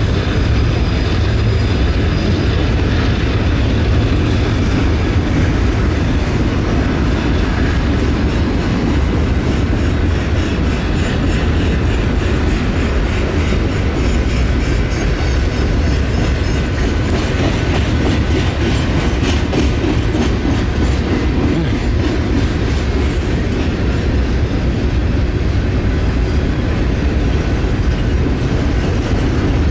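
Freight train cars rolling past at close range: a steady, loud run of wheel noise on the rails, with regular wheel clicks over the joints.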